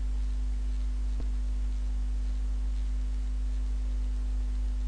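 Steady electrical hum from the recording setup: a strong low drone with a fainter steady tone above it. One faint click about a second in.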